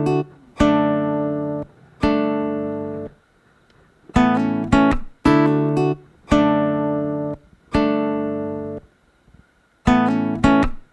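Background music: an acoustic guitar playing a series of plucked chords, each ringing out and fading before the next.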